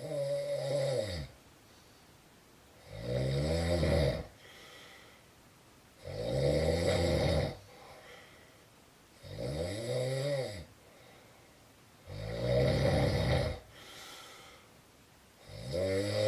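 Snoring in a steady rhythm: a loud, pitched snore about every three seconds, each lasting just over a second, with a much fainter breath between snores.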